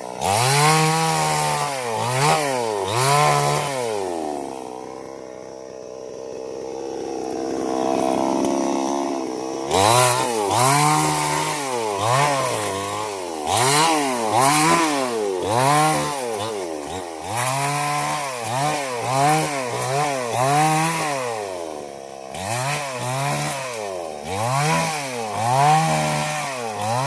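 Chainsaw engine revving up and down over and over, its pitch rising and falling about once a second. About four seconds in it settles to a lower, quieter, steadier speed for several seconds before the revving resumes.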